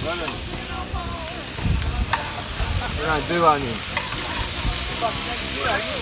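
Bacon sizzling steadily in hot frying pans on portable gas camp stoves, with a few sharp clicks and scrapes of a metal spatula turning the rashers.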